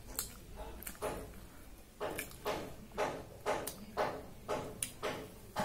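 Close-up chewing of puri and potato fry, in short regular bursts about twice a second from about two seconds in, after a couple of sharp clicks in the first second.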